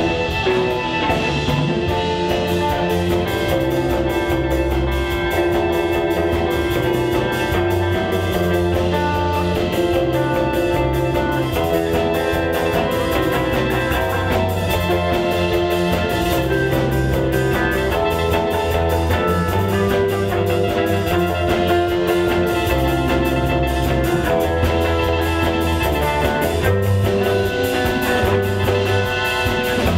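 Rock band playing a song with electric guitar, keyboard and drum kit, with a steady beat and no singing.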